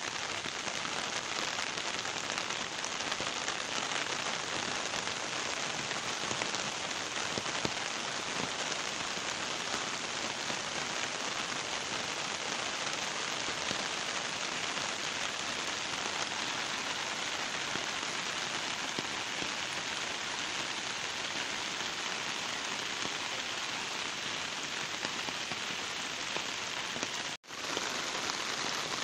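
Heavy rain falling steadily on an umbrella overhead and on a swollen river, heard as one even hiss. The sound drops out for an instant near the end.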